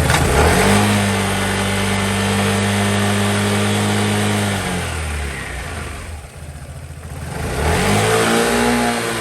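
Piaggio Beverly 350 scooter's engine through its stock exhaust, revved with no load while the rear wheel spins free on the stand. It is revved up and held steady for about four seconds, drops back toward idle, then is revved and held again near the end.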